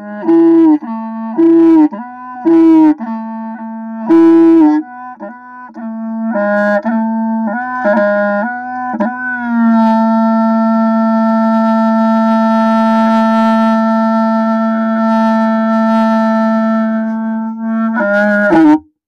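Instrumental music led by a reed-like wind melody. It plays a run of short, separate notes, then holds one long note from about ten seconds in, which cuts off abruptly near the end.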